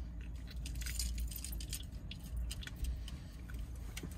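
Peanuts rattling and clicking in a can as it is tipped up to the mouth and handled, a run of small light clicks over a low steady hum.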